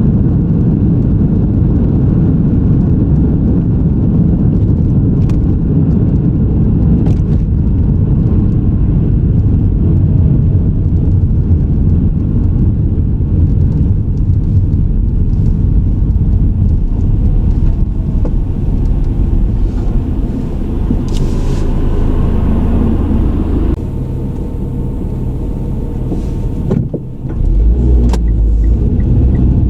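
A car driving, with steady low tyre and engine rumble. The rumble drops for a few seconds past the middle, then comes back louder near the end.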